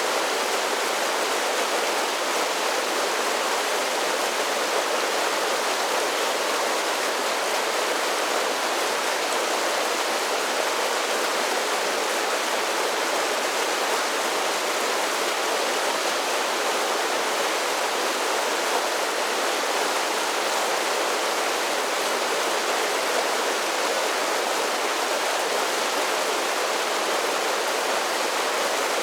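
Mountain creek running over a series of small waterfalls and cascades: a steady, even rush of water.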